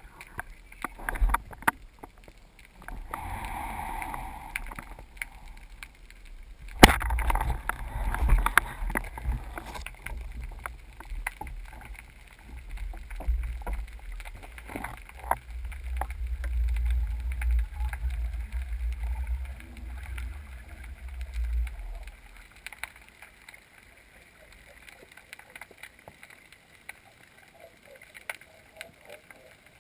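Underwater sound through a GoPro's waterproof housing: a speargun fires with one sharp crack about seven seconds in, followed by about fifteen seconds of low rumbling and scattered knocks, which then die down.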